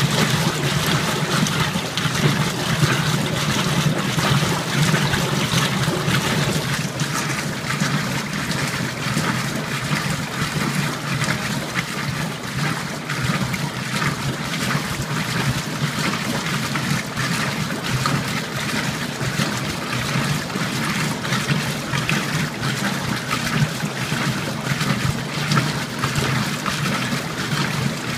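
Old Magic Chef top-load washer agitating a tub of water and clothes: steady sloshing and churning of water around the agitator, over a steady low hum from the machine.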